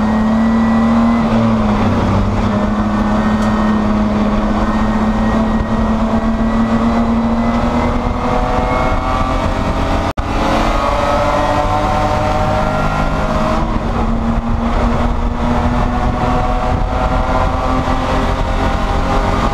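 Spec E30 BMW race car's straight-six engine heard from inside the cabin, pulling hard under load with its note climbing steadily in pitch. The sound cuts out for an instant about ten seconds in, then the engine note climbs again.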